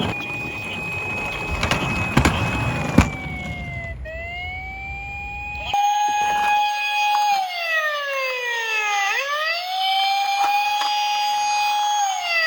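Police-car siren wailing in slow rises and falls: it holds steady for a few seconds, dips low and climbs back, and starts falling again near the end. In the first half it sounds over the rumble of toy cars rolling down a ramp, with a few sharp knocks. About halfway through the rumble cuts off and the siren continues alone.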